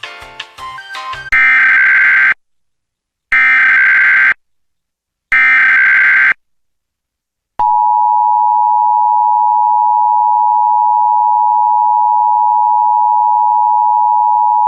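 Emergency Alert System tones. Three one-second bursts of SAME digital header data, a harsh warbling like a modem, come about a second apart right after a music bed ends. After a pause, the steady two-tone EAS attention signal (853 and 960 Hz) starts about halfway through and holds.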